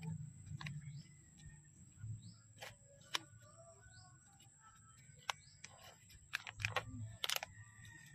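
Faint scattered clicks and rustles of hands working a philodendron's roots, soil and pot, with faint bird chirps behind.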